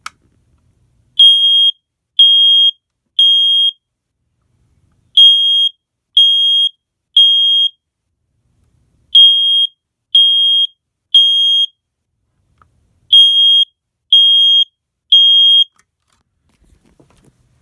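Smoke detector with a sealed 10-year battery, in test, sounding the temporal-three (code 3) evacuation pattern: four rounds of three loud, high-pitched beeps, each round followed by a pause of about a second and a half.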